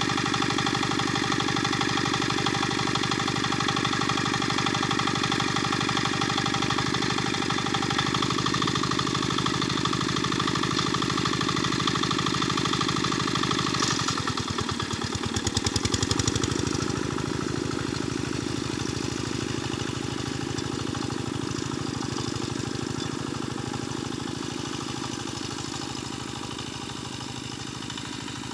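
Mini walk-behind tractor's engine running steadily with a rapid, even chug as it pulls a harrow through a flooded rice paddy. About halfway through its pitch dips and it grows louder for a couple of seconds, as if labouring under load, then recovers; it fades gradually near the end as the tractor moves away.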